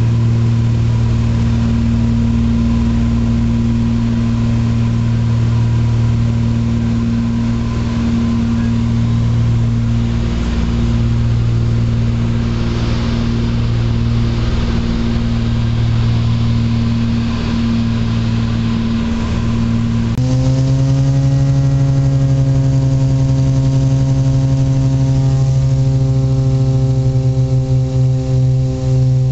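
Cabin drone of a Britten-Norman Trislander in flight, its three six-cylinder Lycoming piston engines and propellers running steadily. About twenty seconds in, the drone steps up to a slightly higher, fuller and louder note, and near the end it throbs in a regular beat.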